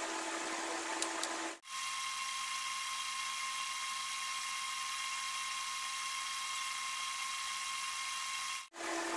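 A steady whirring hiss with a thin steady whine. It drops out briefly twice, about one and a half seconds in and near the end, and the pitch of the whine shifts after each drop-out.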